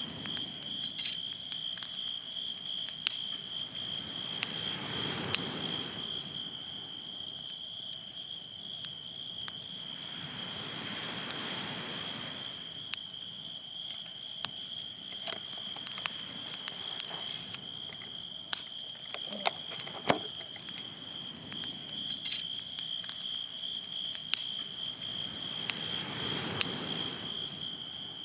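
Insects calling in one steady, high, unbroken trill, with scattered crackling pops from a campfire and a low rushing that swells and fades every several seconds.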